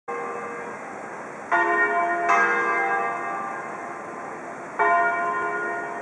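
Church bells ringing, struck four times at uneven intervals, each stroke ringing on and slowly fading so that the notes overlap.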